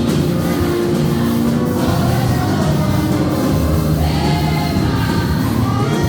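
Background music: gospel-style choir singing over a steady beat.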